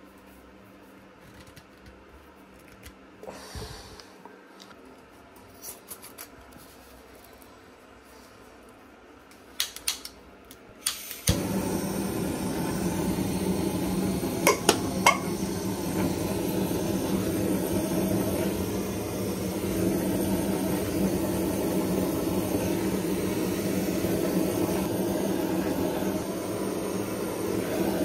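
Handheld butane torch: a few sharp clicks about ten seconds in, then the flame lights and runs with a steady loud hiss. It is played on a glass jar's metal lid to loosen it, with two or three sharp taps partway through.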